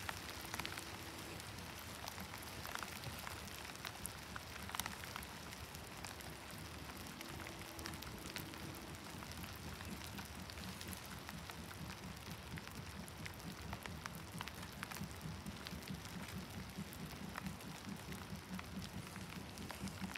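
Steady rain falling, with many small drop clicks close by. A low rumble grows louder through the second half.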